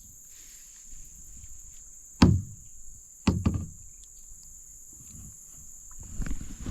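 Knocks against a kayak hull: a sharp one about two seconds in, then two more close together about a second later, with softer bumping near the end.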